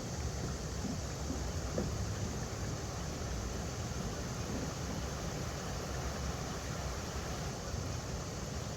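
River water running over rocks: a steady, even rushing with a deep rumble underneath.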